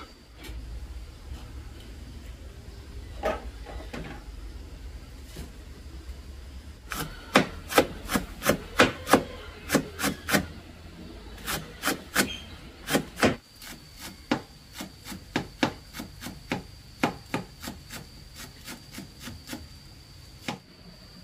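Repeated sharp knocks on wood: a couple of single strikes, then from about seven seconds in, runs of strokes two to three a second, loudest at first and lighter toward the end.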